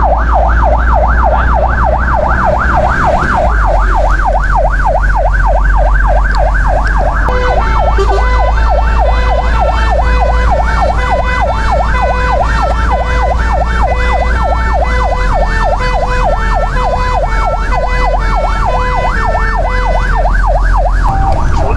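Fire engine's electronic siren heard from inside the cab: a fast rising-and-falling yelp about five sweeps a second, which changes about seven seconds in to a rapid stepped alternating-tone pattern, over a steady low engine and road rumble.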